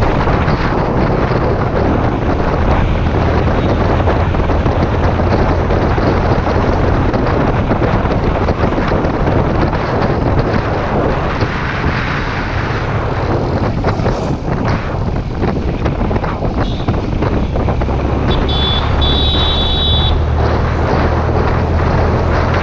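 Wind buffeting the microphone of a motorcycle at road speed, over the steady drone of its engine and tyres. A brief high-pitched beep sounds near the end.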